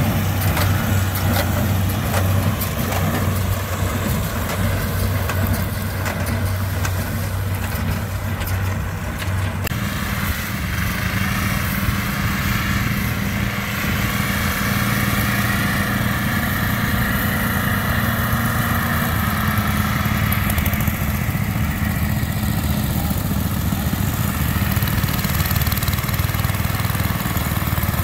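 Tractor engine running steadily with a small square baler working behind it. About ten seconds in this gives way to a small garden tractor engine running under load as it pulls a plow.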